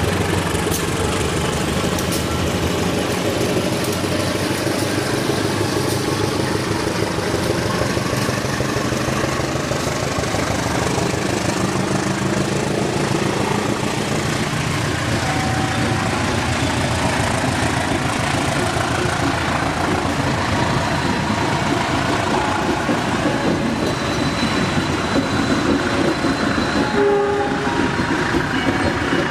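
Passenger train rolling slowly through the station: a steady rumble of wheels on rail, with a few brief high tones here and there.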